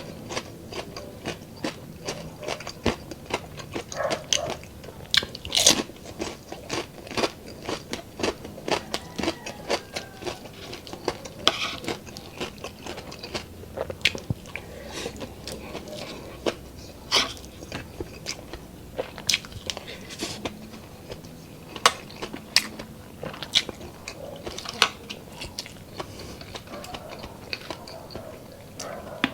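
A person biting and chewing crunchy food close to the microphone, with many sharp, irregular crackles and crunches and wet chewing between them.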